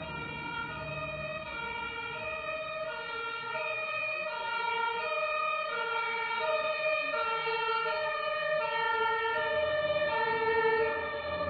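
Two-tone emergency-vehicle siren (German "tatütata" horn) alternating steadily between a high and a low note. It grows louder as it approaches and stops right at the end.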